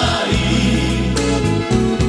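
Background music: a choir singing gospel-style over a steady bass line.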